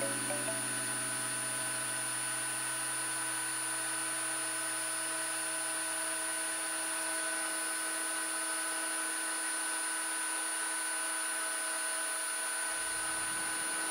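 Freund Spir-A-Flow rotating fluidized-bed granulator dryer running: a steady rush of air from its blower, with a constant high whine over it.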